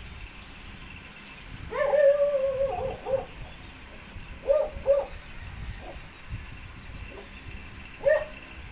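An unseen animal making high, whining calls: one long call about two seconds in, two short ones a little after the middle, and another short one near the end.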